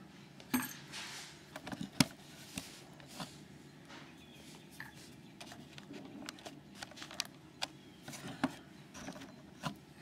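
Scattered small clicks and taps as a brass Schlage Everest lock cylinder and metal picking tools are handled on a work mat, the sharpest click about two seconds in.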